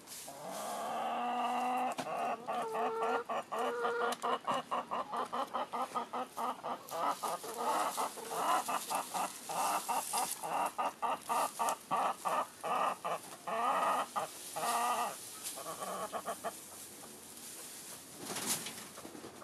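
Hen clucking in a long, rapid run of repeated notes that stops about three-quarters of the way through. A brief rustle follows near the end.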